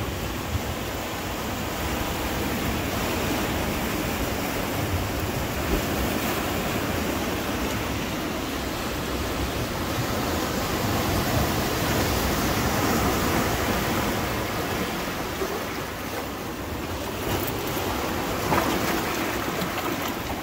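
Shallow water rushing and lapping among rocks and pebbles, a steady wash of noise.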